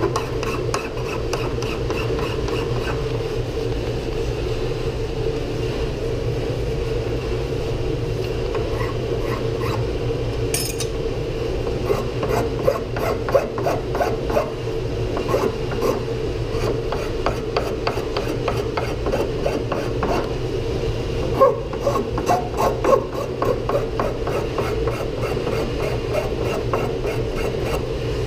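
Hand file rasping in short repeated strokes on the wenge body of a wooden smoothing plane clamped in a vise. The strokes come mostly in the middle stretch, with a few sharper scrapes, over a steady low background hum.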